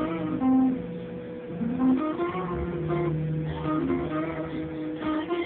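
Acoustic guitar played solo, a slow single-note melody with low notes left ringing underneath. About two seconds in, one note slides up in pitch.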